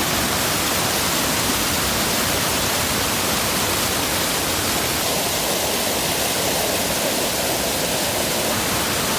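Bracebridge Falls' water rushing over the falls: a loud, steady roar of falling water, its tone shifting slightly about five seconds in.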